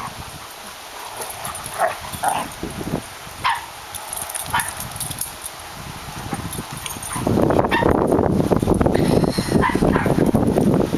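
Two dogs, a border collie–scotch collie mix and a German shorthaired pointer, play-fighting: a few short sharp barks and yips in the first half, then about seven seconds in a louder, continuous rough scuffling noise as they tussle.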